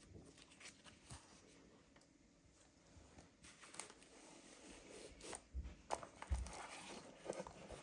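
Faint handling noise: scattered soft clicks and rustles as a wristwatch is fetched and taken out, busier in the second half.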